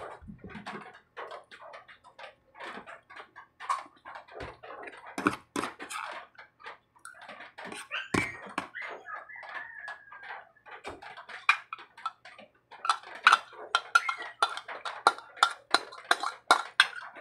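Tableware clinking: a spoon knocking and scraping against a bowl and a metal ladle hitting a cooking pot. The clicks come irregularly at first and turn into a quick run of louder clinks in the last few seconds as soup is ladled from the pot.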